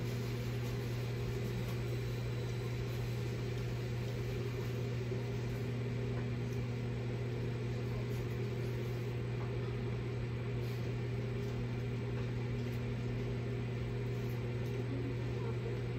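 Steady low mechanical hum in a small room, even and unchanging throughout.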